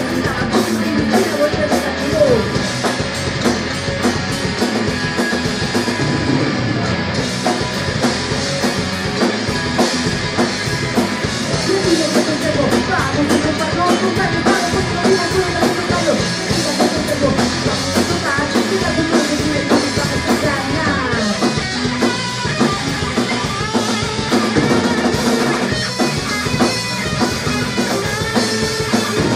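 Live rock band playing loudly and steadily: drum kit, electric guitar and bass guitar.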